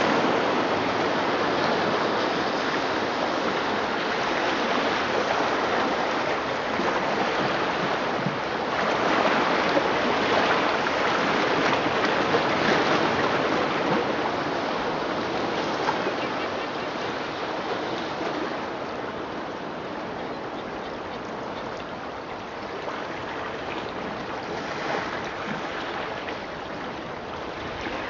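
Recorded ocean surf played through loudspeakers: a steady wash of waves that swells about ten seconds in, then slowly ebbs.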